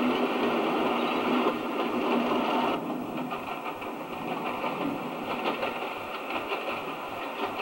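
British Rail Class 50 diesel locomotive, with its English Electric 16-cylinder engine, running past close by, loud. About three seconds in, the sound cuts abruptly to a quieter distant train with faint irregular clicking.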